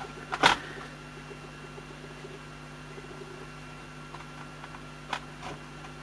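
Plastic laptop case parts knocking and clicking as they are handled and pressed together: one sharp knock about half a second in and lighter clicks about five seconds in, over a faint steady hum.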